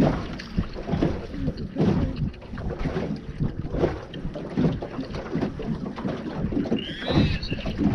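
Wind buffeting the microphone aboard an open fishing boat, in irregular low gusts, with a brief high squeal about seven seconds in.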